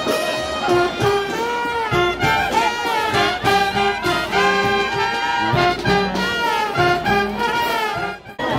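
Brass band music, a brisk melody carried by trumpets and trombones, that breaks off shortly before the end.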